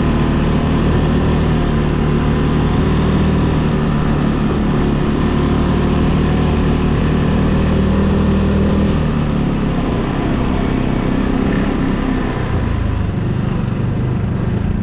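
ATV engine running steadily under way. Its note shifts lower in the last few seconds.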